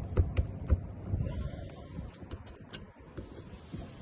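Scattered small clicks and knocks of hand tools working an RV door lock as it is being taken out; the lock is stuck.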